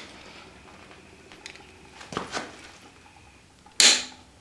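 Quiet tool handling as a torque wrench is pulled on the crankshaft pulley bolt of a Subaru EJ25 engine. There are a couple of faint knocks about two seconds in and one sharp metallic clack near the end.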